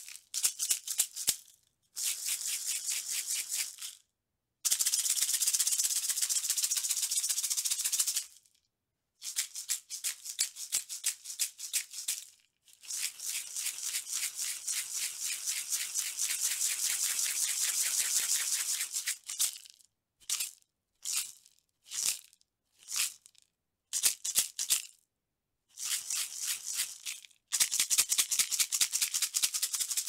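Small bamboo maraca shaken in runs of fast, bright rattling. Some runs last several seconds, with brief silences between them. After the midpoint comes a series of short separate shakes.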